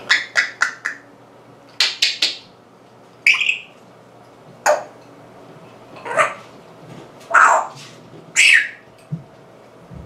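Congo African grey parrot making its sounds: a quick run of sharp clicks, another cluster of clicks about two seconds in, a short whistle, then three harsh squawks about a second apart toward the end.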